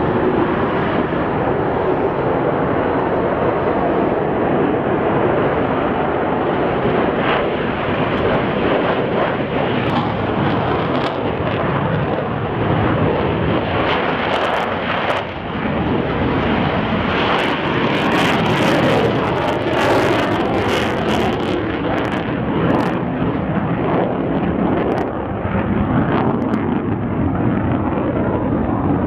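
F-35B Lightning II's jet engine running at takeoff power, a loud steady roar as it rolls down the runway and climbs away, with a stretch of crackling about halfway through.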